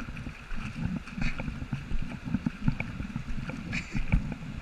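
Wind buffeting the camera microphone over the wash of surf on a beach, with a few short splashes in shallow water about a second in and again near the end.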